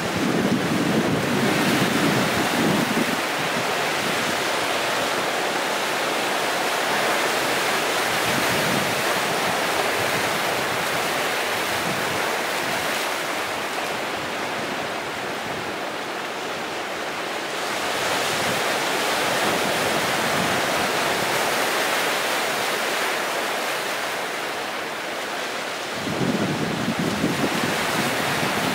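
Sea waves surging and washing over rocks on a rocky shore: a steady rushing hiss that swells and eases, with louder low rumbling near the start and again near the end.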